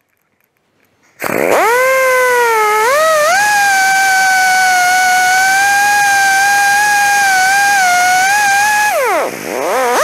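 Handheld grinder with a cutting wheel spinning up with a rising whine about a second in, then running steadily while it cuts through the metal housing of an RV slide-room motor. Near the end the pitch drops sharply and spins back up.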